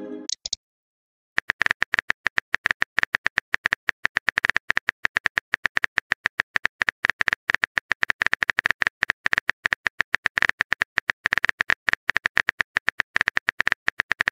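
Rapid virtual phone-keyboard typing clicks, a fast, even run of taps that starts about a second in and keeps going. It is the typing sound effect of a text-message chat animation, with the short tail of a message chime at the very start.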